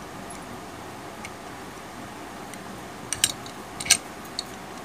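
Sharp little clicks and taps of a phone circuit board being handled against a metal repair plate: a short cluster about three seconds in, the loudest click just before four seconds, then a softer one, over a steady low hiss.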